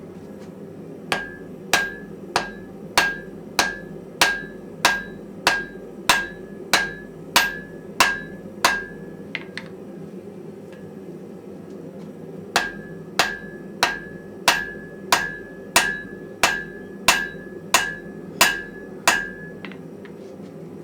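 Hand hammer striking hot wrought iron on an anvil in an even rhythm of about three blows every two seconds, each blow with a short metallic ring. Two runs: about fourteen blows, a pause of some three seconds, then about a dozen more. A steady gas forge burner runs underneath.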